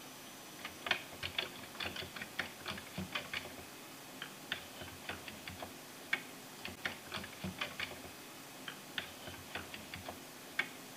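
Keyboard keys clicking in irregular short runs, several clicks a second, with short pauses between runs.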